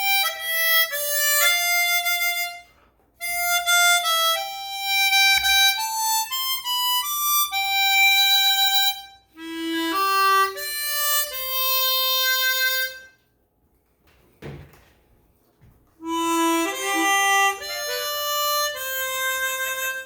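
Chromatic harmonica played acoustically, without amplification or sound processing: melodic phrases of clear held and moving notes, with a pause of a few seconds past the middle before a last phrase.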